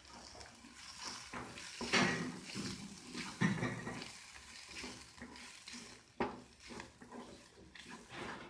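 A spoon stirring sautéed onions and freshly added chilli and coriander powders in a pan of hot coconut oil, scraping against the pan over a low sizzle. Louder scrapes come about 2, 3.5 and 6 seconds in.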